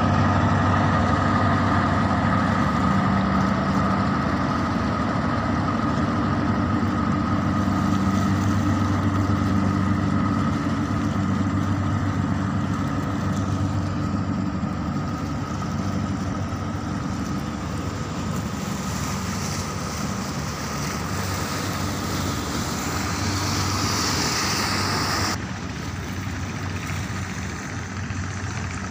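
Boat engine running steadily with a low, even drone that slowly fades. The higher hiss drops away suddenly near the end.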